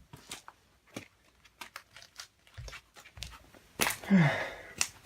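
Scattered light clicks and taps from handling, then about four seconds in a louder breathy rush with a short falling voiced sound, like a sigh or grunt.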